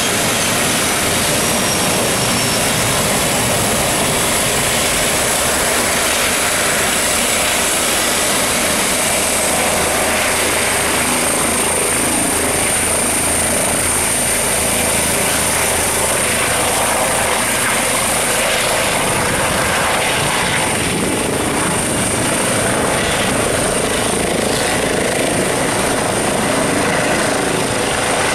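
Eurocopter EC135 twin-engine helicopter running close by: steady rotor and engine noise with a high, even whine on top.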